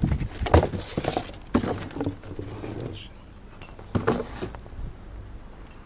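Discarded cardboard produce boxes and rubbish being lifted and rummaged through by hand: rustling with several irregular knocks, the loudest in the first second or so and another about four seconds in.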